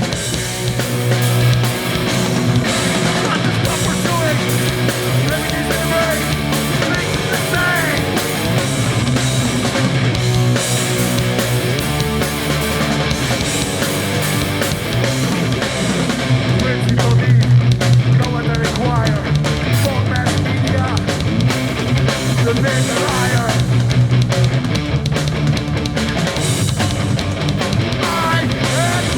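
Hardcore punk band playing live at full volume: distorted electric guitars, bass and a driving drum kit.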